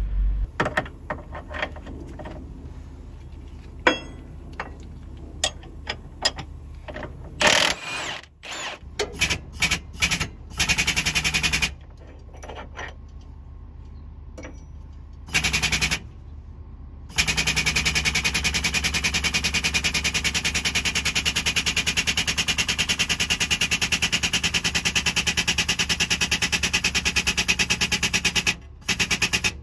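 Air-over-hydraulic pump running with a fast, even pulsing, driving the hydraulic cylinder that presses a new cab bushing into its bracket. It runs in two short bursts and then steadily through the last third. Before that come scattered clicks and knocks of metal adapters being handled.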